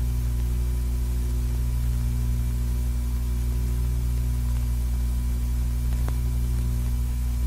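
Steady electrical hum with hiss from an old optical film soundtrack, with one faint click about six seconds in.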